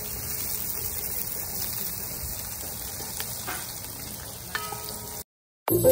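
Chopped onions and hot pepper sizzling in hot oil in a metal pot over a wood fire, stirred with a wooden spoon; a steady hiss. Near the end it cuts out briefly and loud electronic dance music begins.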